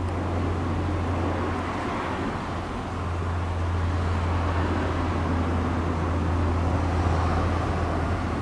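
Road traffic: a steady low hum with a rushing noise that eases briefly a couple of seconds in, then swells again.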